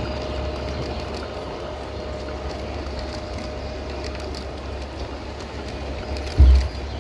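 0 gauge model train running on garden track: a steady hum with light wheel clicks, and one brief low thump near the end.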